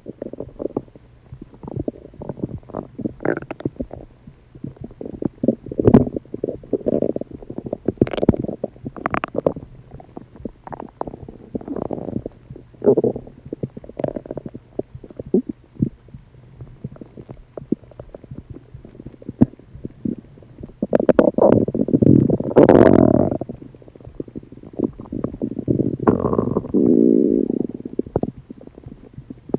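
Human stomach rumbling and gurgling: irregular squelches and pops of gas and fluid moving through the gut, with longer gurgles about 22 seconds in and again around 26 seconds.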